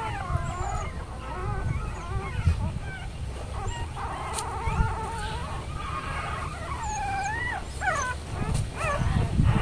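Litter of newborn puppies whimpering and squeaking: thin, wavering high calls that bend up and down, several overlapping in the second half.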